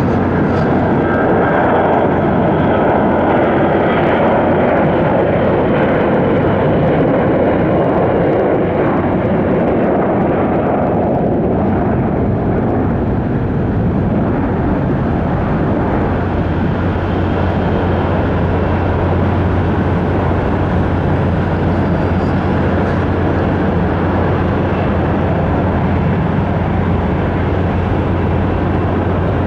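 Boeing KC-135 tanker's four jet engines during its landing, a continuous loud jet noise that is a little stronger in the first several seconds and then holds steady.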